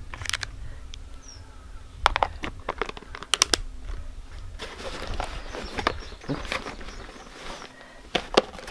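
Hands handling a small clear plastic snap-lid battery box: scattered sharp plastic clicks and rattles with crinkly rustling, and near the end rummaging inside a backpack.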